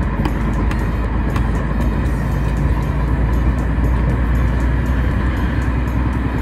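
Steady rumble of a truck driving at motorway speed, mixed with background music that has a steady beat.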